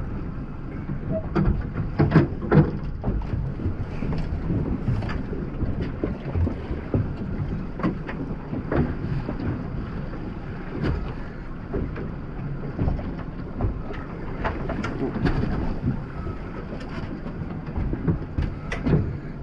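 Wind rumbling on the microphone aboard a small dive boat riding the swell, with scattered short knocks and clicks.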